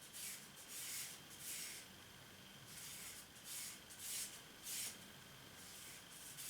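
Knife blade drawn in repeated strokes across a sharpening surface, about eight short hissing scrapes.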